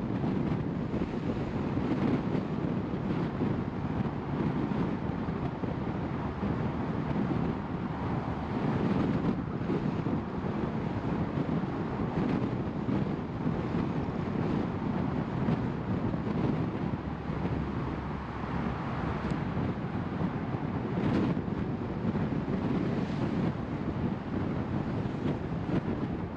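A car driving steadily along a road: a constant low rumble of tyre and engine noise mixed with wind noise.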